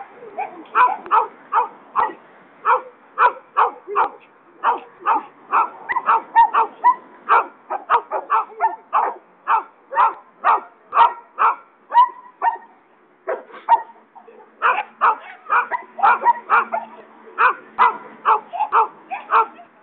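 A dog barking hard and repeatedly, about two barks a second, with a brief pause about two-thirds of the way through: a dog being worked up by a handler during protection-training agitation.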